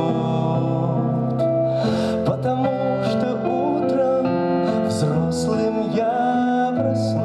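Slow, calm live song: a keyboard plays sustained chords under a held vocal line with vibrato.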